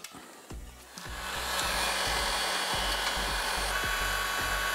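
Handheld heat gun running, blowing a steady stream of hot air onto the radar sensor's housing. Its rushing blow builds up about a second in and then holds steady, with a faint fan whine through it.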